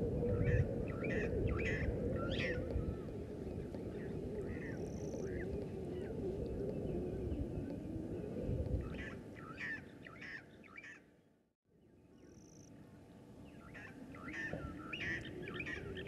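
Wild birds calling in short clusters of quick chirps, several times, over a low wavering drone. Everything drops away briefly a little past the middle, then returns.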